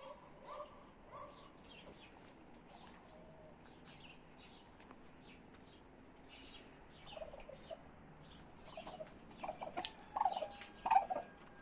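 Domestic fowl calling: short clucking calls, a few near the start and more, louder ones toward the end, over a constant stream of faint high chirps and peeps.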